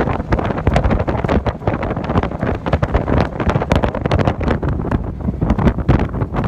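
Wind buffeting the microphone hard as an open dune buggy drives across flat beach sand, with the buggy's engine running underneath the gusty flutter.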